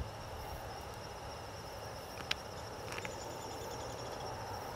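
Steady high-pitched chirring of crickets and other field insects, with two short clicks about two and three seconds in.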